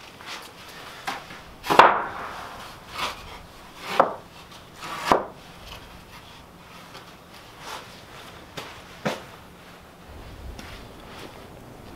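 Wooden boards being set down and stacked on one another: a string of separate wooden knocks and clatters. The loudest comes about two seconds in, three more follow about a second apart, and lighter knocks come later.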